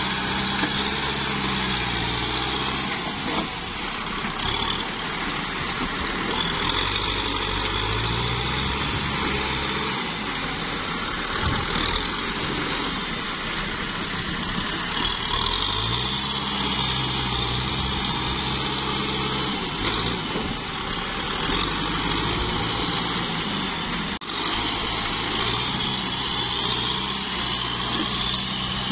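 Kubota tractor's diesel engine labouring through deep paddy mud, its pitch rising and falling again several times as the driver works the throttle.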